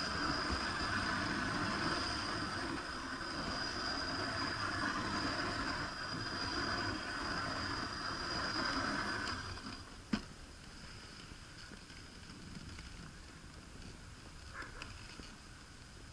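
Dog sled runners sliding and scraping over packed snow as the dog team pulls the sled, a steady hiss with a faint high tone. It gets quieter about nine seconds in, and a single sharp click sounds about a second later.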